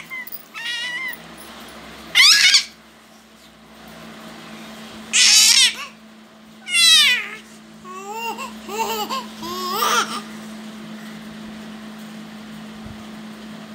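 Infant babbling and squealing: loud high-pitched squeals about 2, 5 and 7 seconds in, then softer cooing babble, with a steady low hum underneath.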